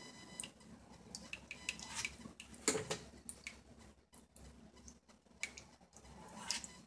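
Faint scraping and small clicks as a plastic cake comb is drawn around the side of a cake frosted with Swiss meringue while a plastic cake turntable is turned by hand. There is a sharper knock nearly three seconds in.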